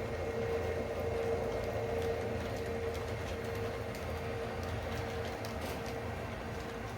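O gauge model diesel locomotive running on the layout, its Protosound engine rumble and a steady whine slowly fading, with faint clicks from the track.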